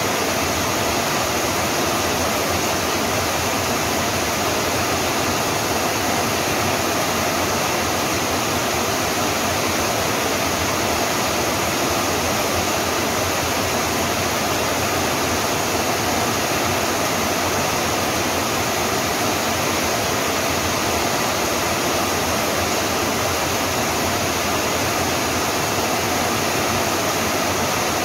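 Steady rain falling, a dense even hiss with no separate drops, thunder or other events standing out.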